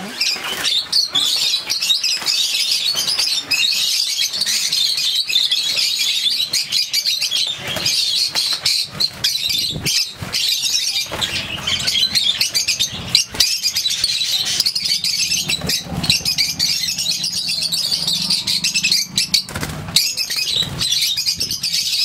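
A colony of lovebirds chattering and shrieking together in a dense, unbroken high-pitched chorus. Wings flutter and sharp knocks and rattles sound now and then as the birds are handled in a small wire cage.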